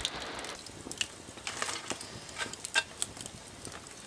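Small wood fire and embers crackling, with scattered faint pops and ticks over a soft hiss.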